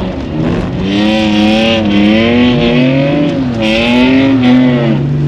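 BMW 330d straight-six diesel engine heard from inside the cabin, its revs rising and falling again and again under the throttle. A higher hiss comes in twice, about a second in and again near four seconds.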